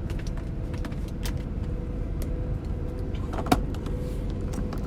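Car running, heard from inside the cabin: a steady low engine and road rumble with a faint steady hum, and a few light clicks and taps, the loudest about three and a half seconds in.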